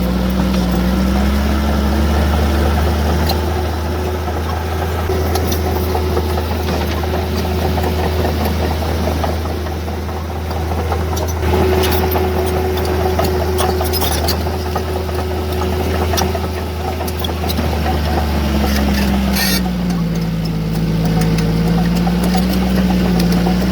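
Diesel engine of heavy earthmoving machinery running continuously, its pitch sagging and then recovering near the start and again near the end, as under changing load, with scattered short metallic clanks.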